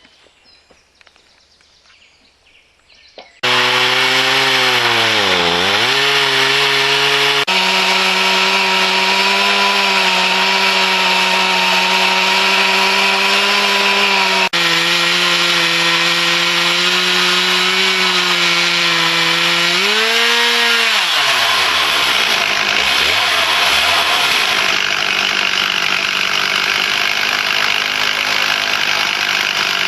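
Chainsaw on a Logosol chainsaw mill running at high revs, ripping a board lengthwise from an oak log. It starts suddenly after about three seconds of quiet, and the engine note dips twice as the saw bogs under load in the cut.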